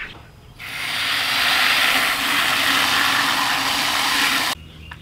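Water from a garden hose watering wand spraying into a plastic bucket, a steady hissing rush that starts about half a second in and cuts off suddenly near the end as the wand is shut off.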